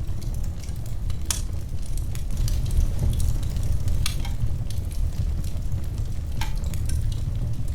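Wood fire crackling: a steady low rumble of flames with scattered sharp pops and snaps, the clearest about a second in, another near four seconds and another near six and a half seconds.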